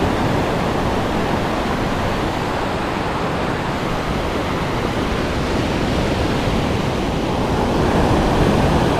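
Ocean surf breaking and washing up a sandy beach: a steady rush of water noise, a little louder near the end.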